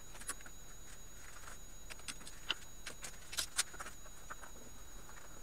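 Scattered light clicks and taps, about half a dozen, as parts are handled on the sheet-metal back of a flat-screen TV.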